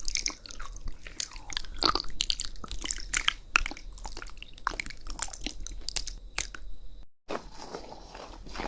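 Close-miked crunchy chewing and biting, a dense run of sharp crackles. About seven seconds in the sound cuts out for an instant, and a duller, lower crunching follows.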